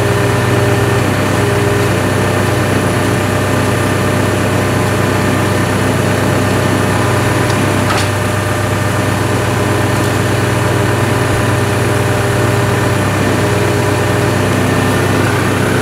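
Engine of a hydraulic power unit running steadily while it drives a trenchless pipe puller that draws a new sewer line through the old one.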